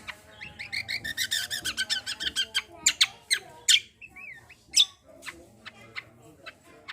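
A kecial kombo songbird singing in full, chattering voice: a fast run of about ten high chirps a second for the first two and a half seconds, then sharp, separate high calls and one wavering whistled note.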